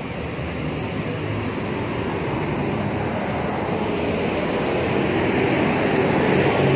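Steady rumble of heavy road traffic passing close by, growing gradually louder.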